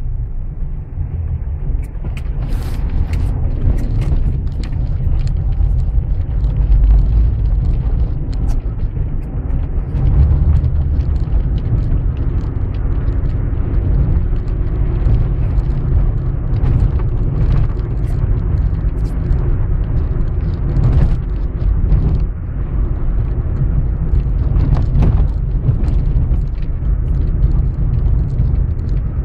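Car driving on city streets, heard from inside the cabin: a steady low rumble of engine and tyres, with frequent small knocks and rattles as the car runs over tram tracks and cobblestones.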